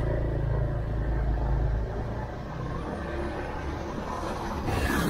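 Motorbike engine running while riding, a low rumble that eases off about two seconds in. A brief rushing noise near the end.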